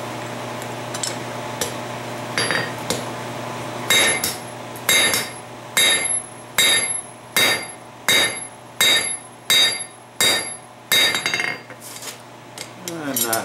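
Hand hammer forging a red-hot steel ball peen hammer head held in tongs on an anvil: a few light taps, then about ten heavy blows at roughly one and a half a second, each with a short metallic ring.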